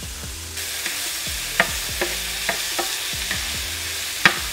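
Pieces of lobster meat sizzling in a nonstick frying pan over medium-high heat, stirred with a spatula. The sizzle comes up about half a second in, and the spatula clicks against the pan several times, loudest near the end.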